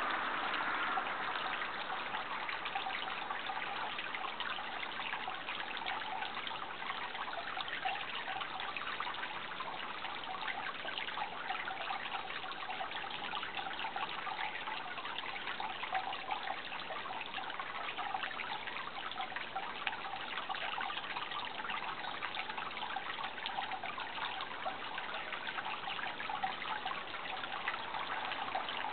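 Water trickling and running steadily, like a small stream or brook, with no pauses.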